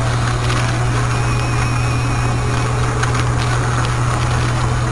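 Car engine and road noise: a steady low drone under an even hiss, with no change in speed or load.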